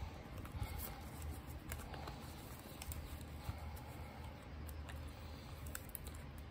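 Soft rustling and small clicks of paper bills and the clear plastic pockets of a cash-budget binder being handled, over a faint low hum.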